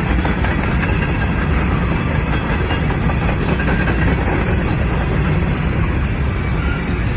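Freight grain train rolling past, a steady loud rumble.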